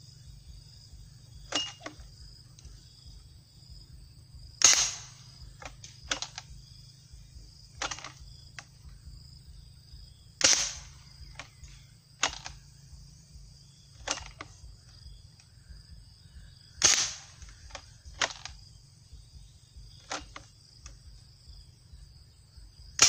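Homemade PVC gas gun, built as a pump-action M4-style shotgun firing 16 mm glass marbles, firing four very loud shots about six seconds apart, the last right at the end. Between the shots come shorter, quieter clacks of the pump action being worked.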